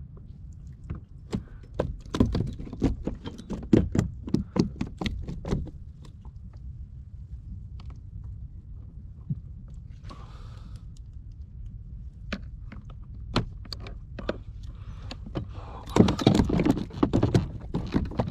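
Knocks and thuds on a plastic fishing kayak, with a light metallic rattle, as a landed barracuda thrashes. The knocks come in a rapid cluster over the first few seconds, then only a few scattered ones, and another dense burst near the end.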